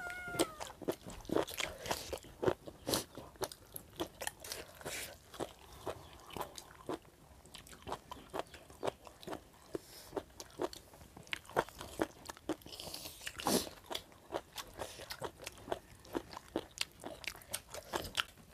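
Close-miked crunching and chewing of crisp boiled pig offal, a run of short sharp crunches and clicks, some of them likely a spoon in a ceramic sauce bowl.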